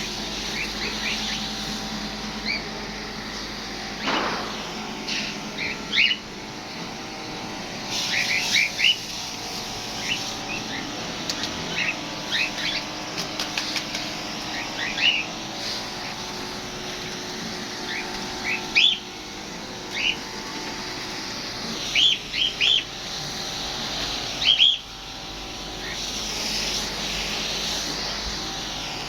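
Small birds chirping in short, quick calls scattered throughout, over a steady hiss that swells and fades, as from garden misting nozzles spraying.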